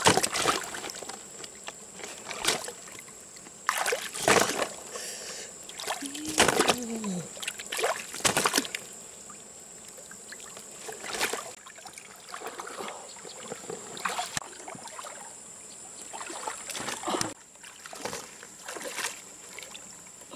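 Shallow lake water splashing and sloshing irregularly as a person wades and gropes with her hands along the muddy bottom, with several sharper splashes scattered through.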